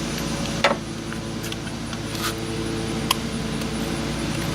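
Lug nut on a compact tractor's rear wheel being tightened with a click-type torque wrench and socket: a few sharp metallic clicks, spaced under a second apart, the loudest about a second in, over a steady low hum.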